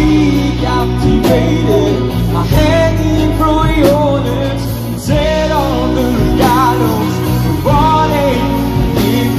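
Live band playing through a PA: a male vocalist sings a wavering melody over electric guitar and drums with a steady low bass line.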